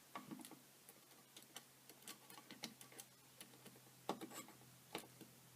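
Faint, irregular small clicks and taps of hands working small screws and plastic parts while taking apart a DJI Phantom 3 Pro drone, with a couple of louder clicks about four seconds in, over a steady low hum.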